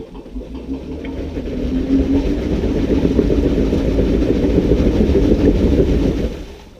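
Jeep Wrangler engine working hard under load as it tries to climb a rock ledge. The sound builds over the first two seconds, holds, then drops off sharply shortly before the end as the driver lets off.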